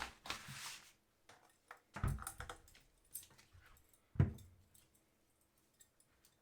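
Handling noise from the compressor's hose and valve adapter being fitted: a brief hiss at the start, small plastic clicks and rattles, and two dull thumps about two and four seconds in. The compressor is not running.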